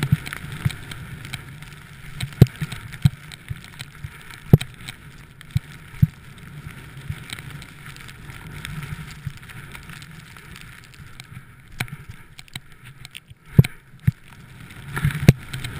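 Steady rush of a rider sliding down through soft snow, with wind on the microphone. Scattered sharp knocks run through it.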